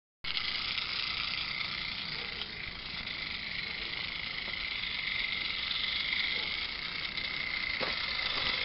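Steady hiss with a thin high tone running through it, starting abruptly just after the start, with a single click near the end.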